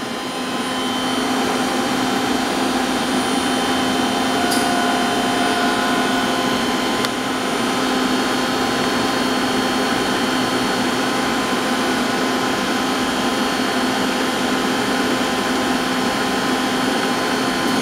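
Spindle of a Sharnoa HPM30 CNC vertical machining center switched on clockwise, spinning up over the first couple of seconds and then running at a steady speed with an even whine and hum.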